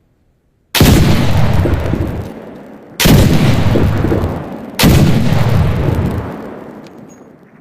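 Blunderbuss flintlock pistol fired three times, about two seconds apart. Each shot is a sudden boom with a long rumbling tail that dies away over about two seconds.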